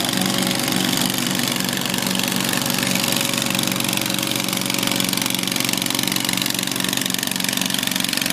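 Small garden tractor engine running steadily with a pulsing note as it pulls a weight sled down a dirt track.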